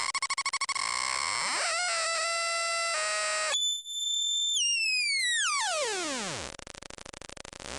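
Homemade electronic noise box in a wooden case, sounding buzzy synthesizer tones as its switches and knobs are worked: stuttering, stepping pitches at first, then about halfway a sudden high tone that glides steadily down until it breaks into a low ticking pulse, and begins to rise again at the end.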